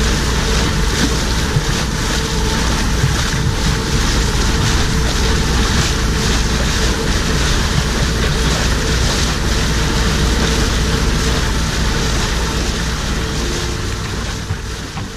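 Wind buffeting the microphone over water rushing past a sailboat, a loud steady noise with a faint steady hum beneath it; it eases slightly near the end.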